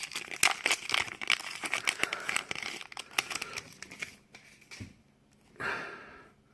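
Foil trading-card pack wrapper being crinkled and torn open, a dense crackling for about four seconds. A brief soft rustle follows near the end.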